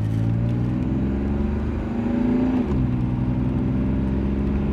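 BMW 733i's 3.2-litre straight-six pulling under acceleration, heard from inside the car: the revs climb steadily, drop sharply about halfway through as the automatic gearbox shifts up, then hold steady.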